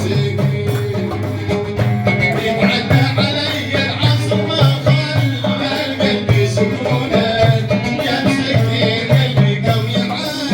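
Live Middle Eastern folk music: an instrumental passage with melody over hand percussion and a shaker-like rattle keeping a steady beat.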